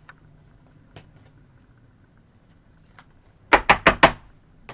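Trading cards and a foil card pack being handled on a table: a few faint clicks, then four quick, loud crinkling strokes in a row about three and a half seconds in.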